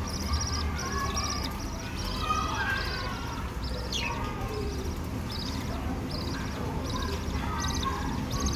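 Budgerigars chirping and warbling: short buzzy high calls repeated about every half second over a softer warbling chatter, with one quick falling note partway through. A steady low hum lies underneath.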